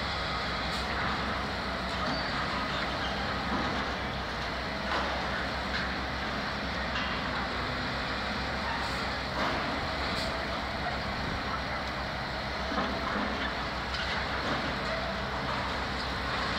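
Steady rumble of city traffic and diesel construction machinery, with a few faint knocks.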